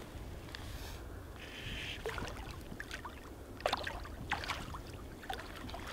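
Water splashing and sloshing as someone wades through a river, with a few sharper splashes about two seconds in and again a little past the middle, over a steady low rumble of flowing water and wind.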